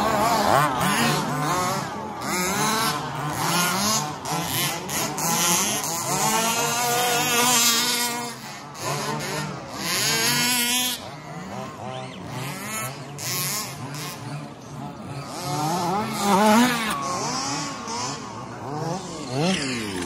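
Radio-controlled 2WD off-road buggies racing past, their electric motors whining in pitch that rises and falls as they accelerate and brake, louder and softer as they pass by.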